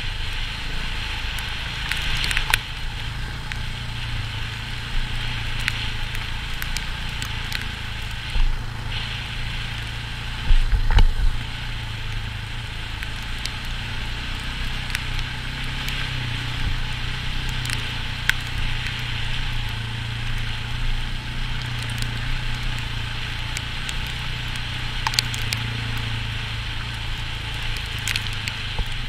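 KTM 690 single-cylinder trail bike engine running steadily on the move, heard from the rider's helmet, with scattered sharp ticks and a brief heavy low thump about eleven seconds in.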